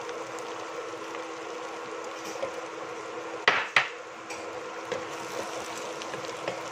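Wooden spoon stirring diced vegetables in a stainless-steel pot, with light scattered scrapes and two sharp knocks close together about three and a half seconds in, over a steady hum.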